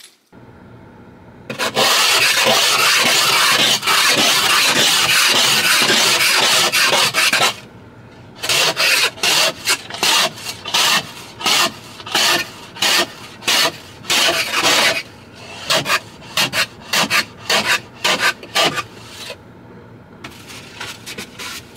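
Ice scraper scraping frost off a car windshield, heard from inside the car through the glass. A long continuous scrape starts a second or so in, followed by a run of quick separate strokes, about two a second, which turn lighter near the end.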